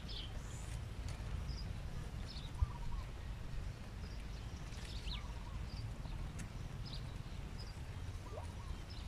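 Scattered short bird chirps over a steady low rumble, with a single sharp click about two and a half seconds in.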